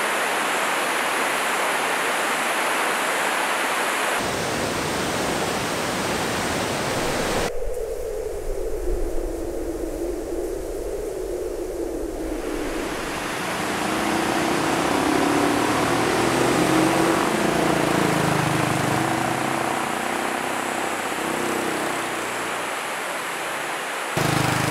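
Steady rush of a mountain river tumbling over stepped weirs, its character shifting abruptly several times. About a third of the way in, a low drone joins it, sliding down in pitch and then wavering.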